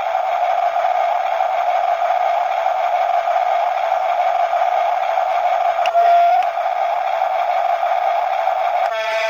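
Steady high whine of a remote-control toy's small electric motor and plastic gearbox running continuously, with a brief click about six seconds in.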